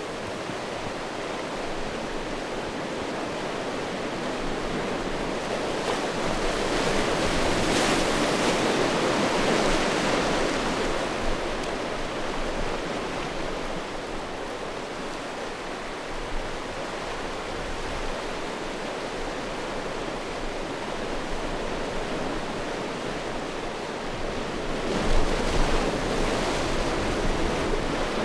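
Sea waves washing in over a beach of rounded stones, a steady surf that swells to its loudest about a third of the way in and rises again near the end.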